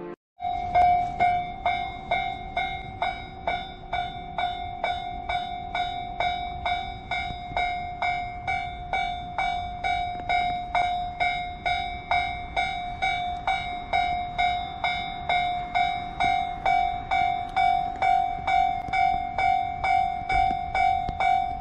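Japanese level-crossing alarm bell ringing at a steady pace, about two strokes a second. It starts about half a second in, over a low rumble.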